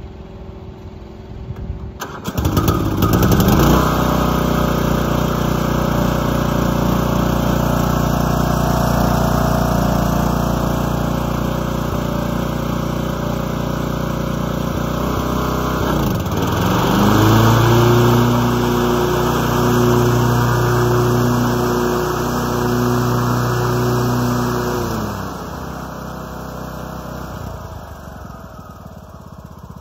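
Snapper ST1842 riding lawn mower's engine is cranked with the starter about two seconds in, catches within a second or two, then runs steadily. About halfway through, its pitch dips sharply and climbs back to a stronger steady hum. That hum drops away near the end, and the engine runs on more quietly.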